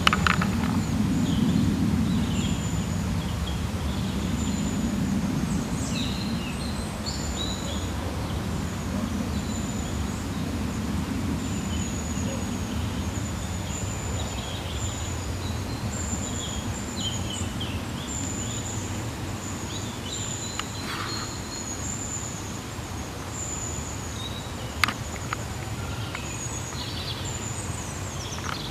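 Outdoor ambience: birds chirping, with a thin, high-pitched chirp repeating over and over, above a steady low rumble. A few sharp clicks come near the end.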